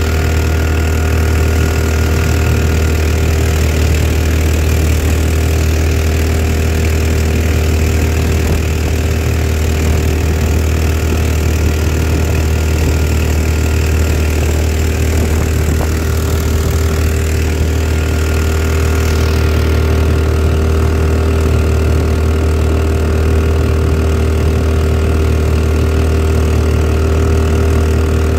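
Harbor Freight 459cc single-cylinder engine driving a 12 ft jon boat, running steadily at an even speed with no change in pitch.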